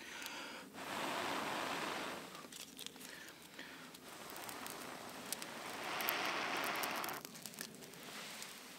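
Breath blown in long puffs into a smouldering hand-held tinder bundle, twice, about a second in and again about six seconds in, coaxing the ember into flame. Between the blows the dry tinder crackles and rustles as the fingers work it.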